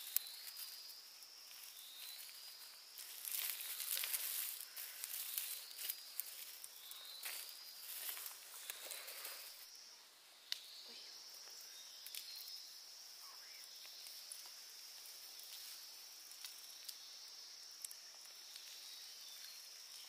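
Insects droning steadily at a high pitch, with repeated rising trills in the first half. Through the first ten seconds or so, irregular rustling and crackling noises of plant material being handled play over the drone; after that the drone carries on with a few faint ticks.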